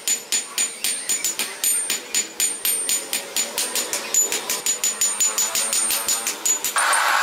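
Hammer blows on red-hot steel on an anvil, a quick even rhythm of about five strikes a second, each strike ringing.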